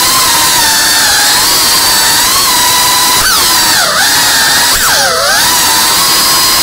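FPV drone's motors and propellers whining steadily. About halfway through, the pitch dips sharply and climbs back twice as the throttle is cut and brought back.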